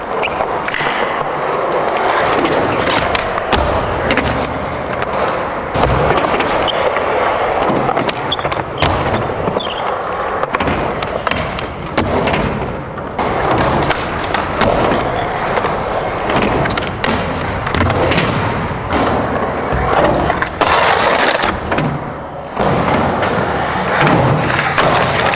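Skateboards rolling over concrete and ramps, the wheels making a constant rumbling hiss, broken by frequent sharp clacks and knocks of boards and trucks hitting the ramps and ground.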